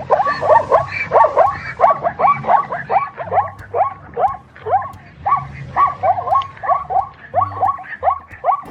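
Animal calls: a fast, even run of short yelping cries, about three a second.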